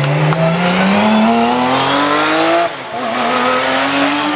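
Porsche 911 GT3 Cup race car's flat-six engine accelerating hard at full throttle, its pitch rising steadily. About two-thirds in the pitch drops at a quick upshift, then climbs again.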